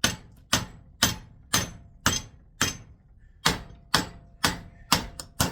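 Hammer blows on a small transformer-like coil from a contactor, about a dozen sharp strikes at roughly two a second with a short pause about halfway through, to crack it open for its copper winding.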